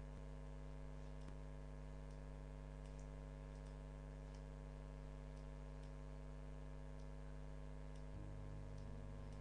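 Steady electrical hum with faint scattered ticks: the background noise of a webcam microphone.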